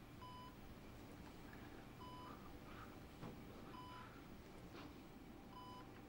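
Bedside patient monitor beeping faintly, four short, evenly spaced tones about every 1.8 seconds.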